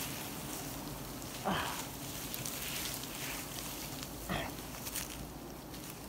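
Leafy branches and twigs rustling as they are gripped and pulled by hand, over a steady outdoor hiss. Twice, about one and a half seconds in and again near four seconds, comes a short sound that drops quickly in pitch.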